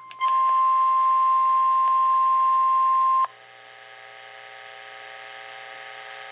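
NOAA Weather Radio warning alarm tone: one loud, steady, high beep lasting about three seconds that cuts off suddenly, signalling that a warning message follows. After it comes quieter, steady radio static.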